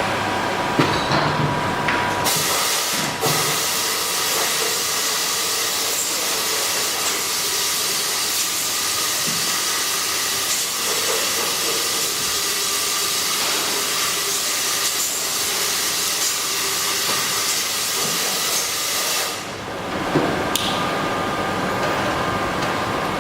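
A loud, steady hiss starts about two seconds in and cuts off suddenly about nineteen seconds in, with faint steady tones running beneath it.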